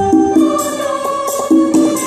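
A choir singing a melody together in step, with hand percussion keeping a steady beat.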